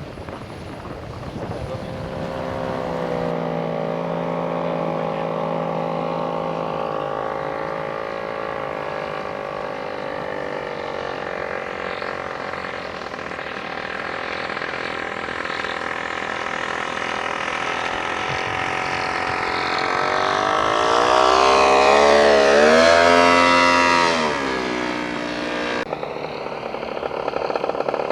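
Radio-controlled model airplane's engine running in flight, a steady buzzing drone whose pitch rises and falls as the plane manoeuvres. It is loudest, with a swooping change of pitch, about three quarters of the way in, as it passes close.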